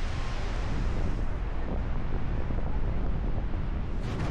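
Steady rush of the Goðafoss waterfall, with wind buffeting the microphone in uneven low gusts.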